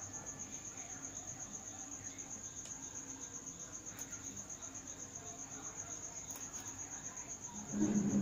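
Cricket chirping steadily: a faint, high, rapidly pulsing trill. A short, louder low sound comes in near the end.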